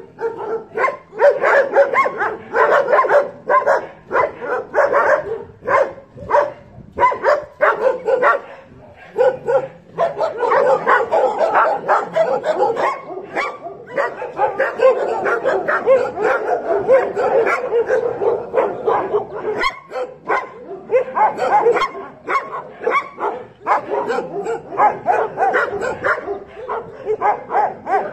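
Several dogs barking at once, short barks coming a few a second and overlapping into a near-continuous chorus for much of the time.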